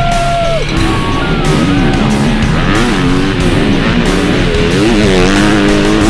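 Rock music soundtrack mixed with motocross dirt bike engines revving, their pitch rising and falling over and over through gear changes.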